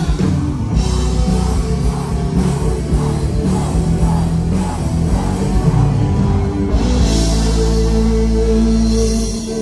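Live band playing amplified rock-style gospel music on electric guitar, keyboard and drums. A steady drum beat gives way about seven seconds in to a long held chord, which stops just before the end.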